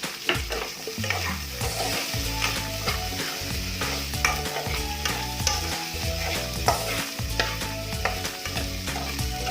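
Carrots, potatoes and bell pepper sizzling in hot oil in a pan as they are stirred and sautéed, with a utensil scraping and knocking against the pan at irregular intervals.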